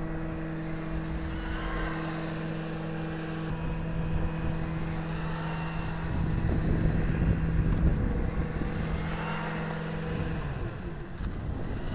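Wltoys 184016 1/18 brushless RC buggy on a 3S battery making a full-throttle speed run: its high whine grows loud as it passes close about two seconds in and again near the end as it comes back, fainter in between. Under it sit wind rumble on the microphone and a steady low hum that stops shortly before the end.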